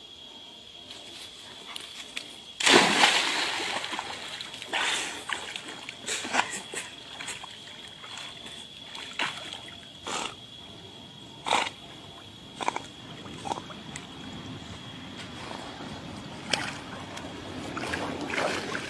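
A big splash about three seconds in, as a body plunges into a pond. It is followed by scattered smaller splashes and sloshing as a dog and a man swim in the water.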